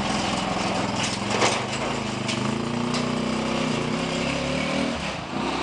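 Small engine of a three-wheeled cargo motorbike running as it pulls away, its pitch wavering and rising a little in the middle.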